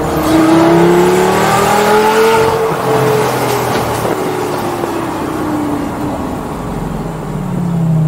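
Straight-piped 2004 Lamborghini Gallardo's 5.0-litre V10 accelerating, its pitch rising for about two and a half seconds, then easing off with the pitch falling.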